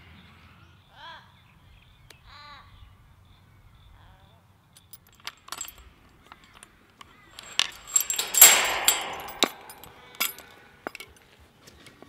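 Two short bird calls, then a steel gate chain rattling and clinking as it is unhooked from a mesh farm gate. The jangling is loudest about eight seconds in, followed by a few sharp metal clinks.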